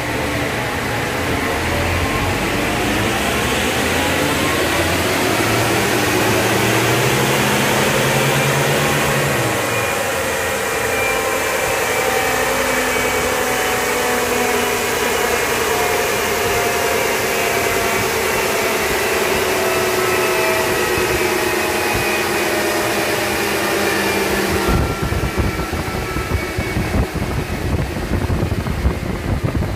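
Ford Ranger's engine pulling up through its revs on a dynamometer power run, the pitch rising over about ten seconds, then held steady at high speed. About 25 seconds in, the sound cuts abruptly to a rushing noise with uneven loudness.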